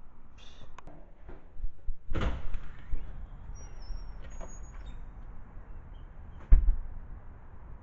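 A door opening and closing: scattered clicks and clunks, a louder knock about two seconds in and the loudest sharp thump about six and a half seconds in.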